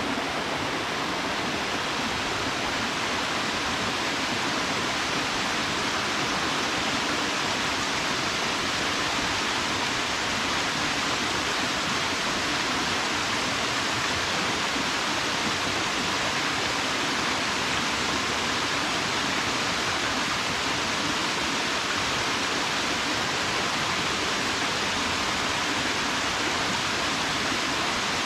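Waterfall: water falling and splashing into a plunge pool, a steady, even rush.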